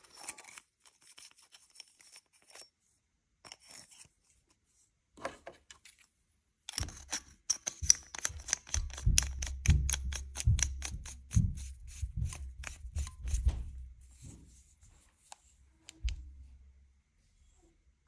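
Handling of a KEPEAK tactical flashlight as its battery carrier of AAA batteries is put in: a few light clicks, then about seven seconds in a long run of rapid clicks and low knocks lasting some seven seconds, which dies away near the end.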